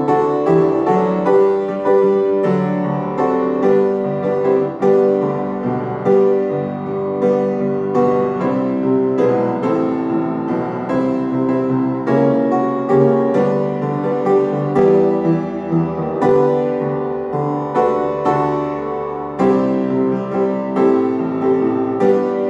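Piano playing a prelude, a steady flow of struck notes and chords.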